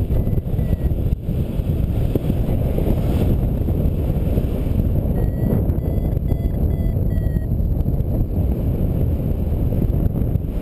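Steady wind rushing over the microphone in flight, with a paragliding variometer beeping a quick run of short high tones, about three a second, for roughly two seconds midway: the vario's climb signal in rising air.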